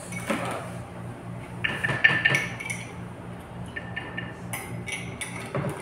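Utensils and chopsticks clinking and tapping against ceramic plates and bowls while eating, a few clinks ringing briefly, in a cluster about two seconds in and again near the end.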